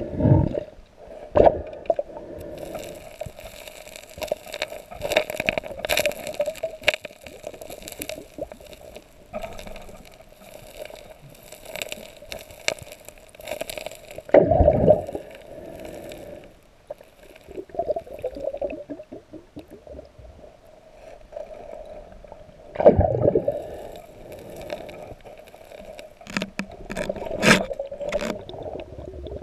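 Underwater recording of stones and gravel being dug through by hand on a riverbed: scraping and clicking of rocks against each other, with several loud dull knocks, over a steady muffled rush of water.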